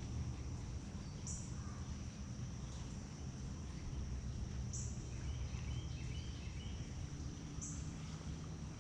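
Outdoor insect chorus: a steady high buzz, with a short louder buzz about three times, roughly every three seconds. A few short bird notes come near the middle, over a low steady rumble.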